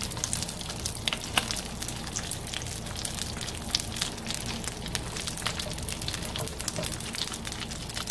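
Smoked mackerel pike (tinapa) frying in a little oil in a nonstick pan: steady sizzling with frequent small crackles and pops.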